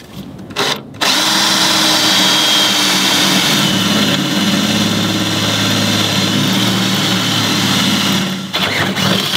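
Cordless drill with an 8 mm bit boring a hole into a steel boat hull. A short blip, then about seven seconds of steady drilling with a high whine over the motor's hum, which stops near the end with a few short bursts.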